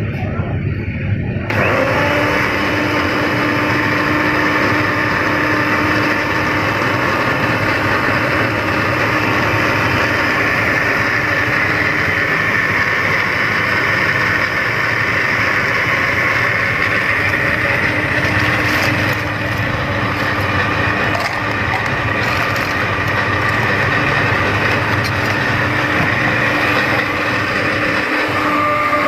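Countertop electric blender switched on about a second and a half in, then running steadily at a constant pitch as it blends a milk drink.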